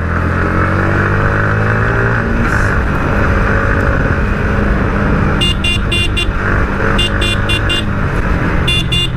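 Motorcycle engine running steadily under a heavy rush of wind on a helmet-mounted mic. From about halfway, a vehicle horn sounds three quick runs of rapid short beeps.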